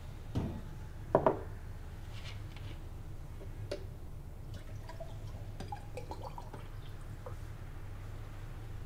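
A drinking glass taken from a kitchen cabinet and set down, with two sharp knocks about a second in, then water poured into the glass with small glassy clinks and trickling. A steady low hum runs underneath.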